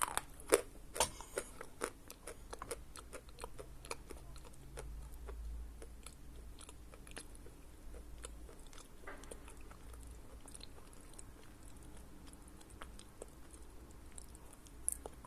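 Someone chewing a lump of Khrapovsky natural chalk close to the microphone. A run of sharp, crisp crunches in the first two seconds is followed by slower, softer chewing with scattered small crunches as the dry chalk turns to a grainy paste.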